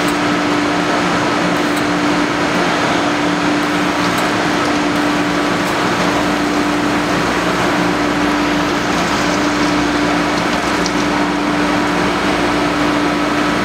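BTA deep hole drilling machine running a cut into a steel bar: a steady machine hum with one constant tone, under an even rush of coolant oil and cutting noise.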